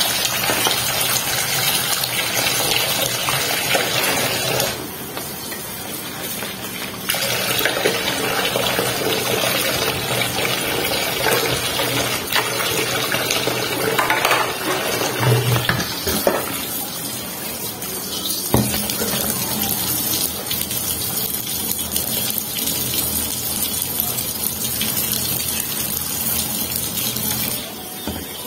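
Kitchen tap running into a stainless steel sink while a small pan is washed with dish soap and rinsed, with a few knocks of the pan against the sink. The flow eases briefly about five seconds in.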